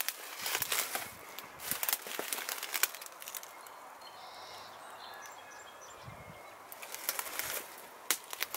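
Footsteps crunching and rustling through dry grass and brush, in clusters at the start and again near the end. In the quieter stretch between, faint high bird chirps.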